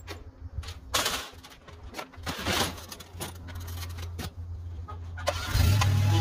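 A small engine running low in the background under a series of clicks and knocks of equipment being handled. About five and a half seconds in, an engine starts up or is throttled up and runs loud and steady.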